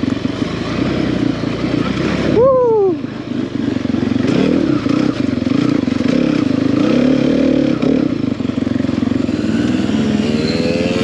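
Enduro dirt bike engine running under varying throttle, the pitch swinging up and down as the rider works it. There is a quick rise and fall about two and a half seconds in, and a rising rev near the end.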